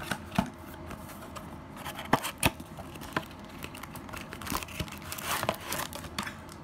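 Cardboard box and paper packaging of a wax-strip hair-removal kit being opened and handled: scattered sharp clicks, crinkles and rustles as the box is worked open and a paper leaflet and the strip packet are pulled out.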